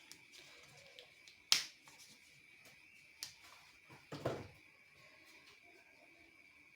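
A few sharp knocks and clicks of cookware being handled, the loudest about a second and a half in and another around four seconds, over a faint steady high tone.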